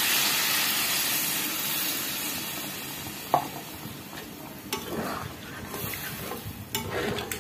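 Fried potato strips and spice paste sizzling loudly in a hot metal wok as water is added, the hiss dying away over the first few seconds. Then a few sharp clinks of a metal spoon against the wok as it is stirred.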